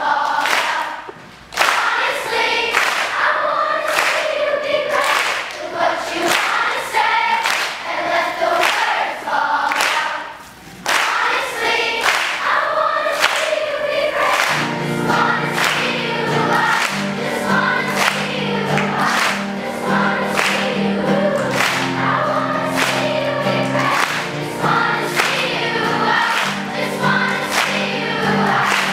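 Children's choir singing together, with hands clapping along. About halfway through, low sustained accompaniment notes join the voices.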